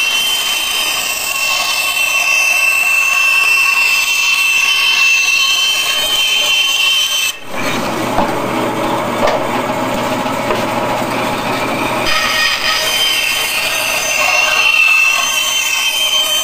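Band saw running and cutting five-layer Baltic birch plywood, a steady high whine over the noise of the blade. About seven seconds in the sound changes abruptly to a lower, rougher noise for about five seconds, then the whine comes back.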